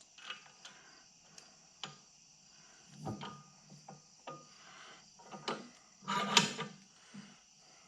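Scattered light clicks and knocks of small metal parts and tools being handled at a workbench, with a louder rattling scrape about six seconds in.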